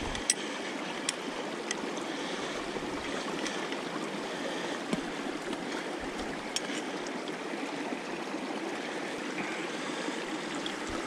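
Stream water running steadily through the sticks of a beaver dam, with a few light clicks from a steel foothold trap being handled.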